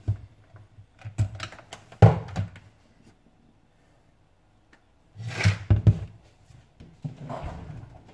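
Handling noise from a plastic mixing bowl and electric hand mixer: scattered knocks, taps and scuffs with no mixer motor running. The loudest clusters come about two seconds in and again around five to six seconds in.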